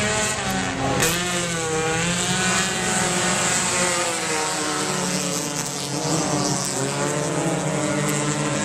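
Several dirt-track stock cars racing, their engines at high revs, overlapping engine notes sweeping up and down in pitch as the cars pass through the turn.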